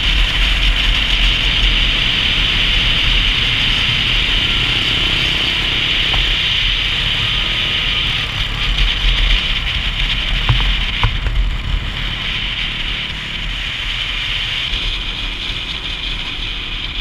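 Dual-sport motorcycle engine running steadily under way, mixed with steady wind and road noise. A couple of brief clicks come about ten seconds in.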